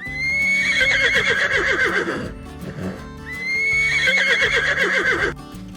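Horse neighing twice, about a second apart. Each neigh is a high call that breaks into a shaky, falling whinny, and the two look like the same recording played again.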